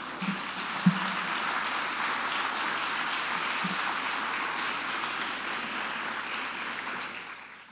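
Audience applauding: dense, steady clapping with a small thump about a second in, fading out near the end.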